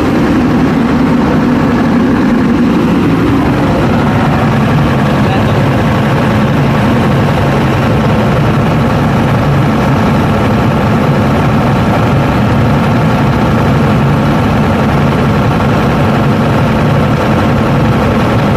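Scania R580 truck's V8 diesel engine running steadily, loud and close.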